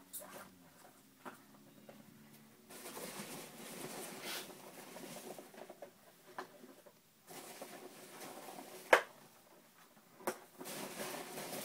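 Foam packing peanuts rustling as hands dig through a cardboard shipping box, with knocks as small cardboard product boxes are lifted out and set down. The loudest is a sharp knock about nine seconds in.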